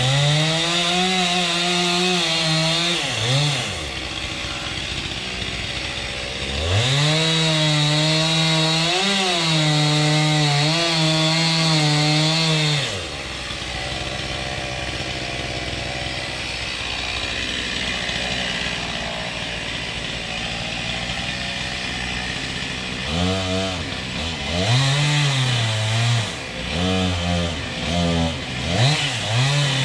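Gas chainsaw cutting tree wood at full throttle in two long runs, the first about three seconds and the second about six, dropping back to a lower idle in between. Near the end it is revved up and down in quick blips.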